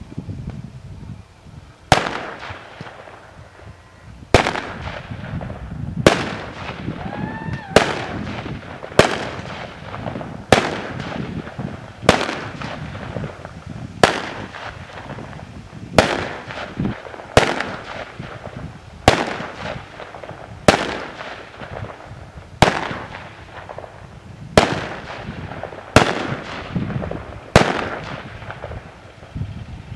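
Aerial fireworks going off: a sharp bang every one to two seconds, about seventeen in all, each dying away before the next.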